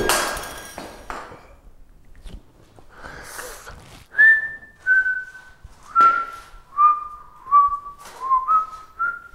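A man whistling a short tune through pursed lips, starting about four seconds in: about eight clear notes stepping down in pitch, then rising again for the last two. Just before it, right at the start, there is a brief rushing noise.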